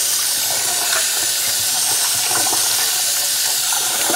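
Cold tap water running steadily from a kitchen faucet into a pot of rice, with a hand swishing the grains to rinse off the starch.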